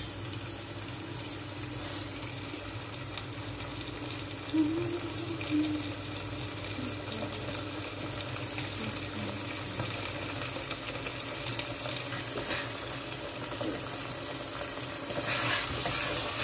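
Chicken pieces sizzling steadily as they sauté in curry paste in a stainless steel pot. Near the end a metal ladle starts stirring and scraping through the pot.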